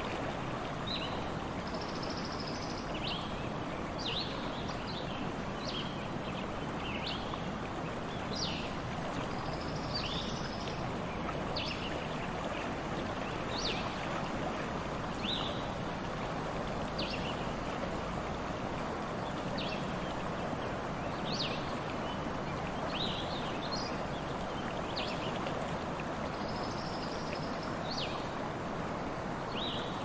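Brook babbling and rushing steadily over stones, with a bird giving short high chirps every second or two.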